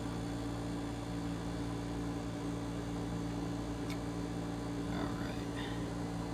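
Frigidaire dehumidifier running with its Tecumseh reciprocating compressor: a steady hum with fan noise, sounding healthy. A short tick about 4 s in.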